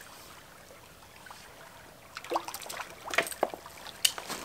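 Shallow creek water trickling. From about two seconds in come several sharp clicks and splashes as a hooked trout is played in close to the net.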